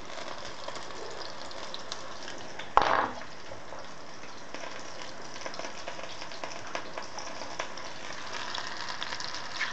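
Hake-mince cutlets frying in oil in a pan: a steady sizzle with small crackles. A single sharp knock about three seconds in.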